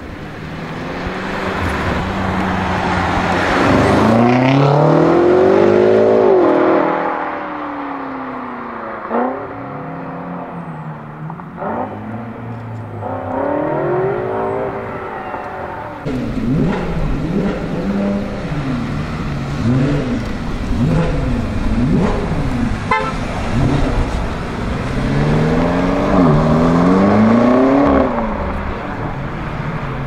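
A BMW M5 F90's twin-turbo V8, tuned to about 750 hp, accelerating hard twice, the second run starting about halfway through. The engine pitch climbs and then drops at each upshift, with sharp exhaust pops and crackles between pulls.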